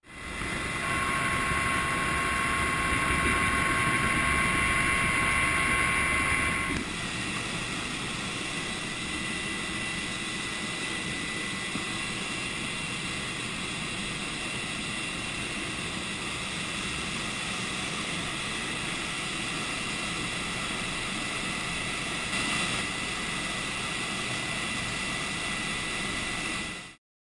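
Coast Guard rescue helicopter's turbine engines and rotor running steadily, heard from inside the cabin, with a steady high whine over a dense rushing noise. About seven seconds in, the sound drops to a quieter level and the lower of two whine tones disappears.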